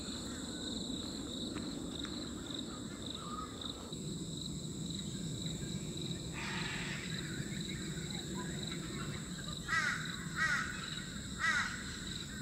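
Torresian crow calling: three harsh caws close together near the end, over a steady high insect drone.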